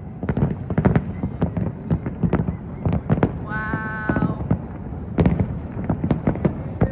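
Fireworks exploding in a rapid, uneven run of sharp bangs and crackles. A person gives a brief shout about halfway through.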